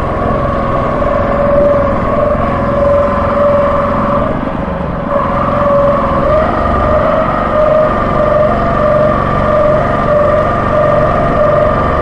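Small motorboat's engine running steadily at speed, a constant droning whine over the rush of water and wind, its pitch wavering slightly in the second half.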